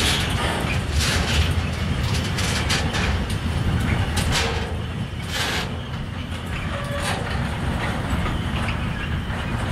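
Freight train of open wagons rolling past and away, wheels clacking over rail joints a few times at uneven intervals over a steady low rumble.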